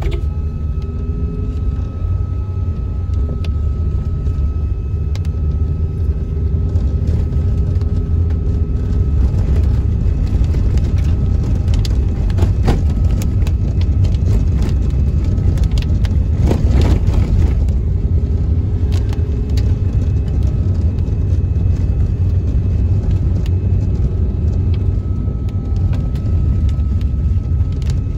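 Steady low rumble of a car's engine and tyres heard from inside the moving car's cabin, with a faint steady high whine over it and a few brief clicks around the middle.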